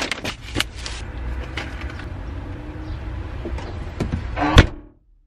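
A car's trunk lid pulled down and slammed shut about four and a half seconds in, the loudest sound, after a few light clicks and a steady low rumble.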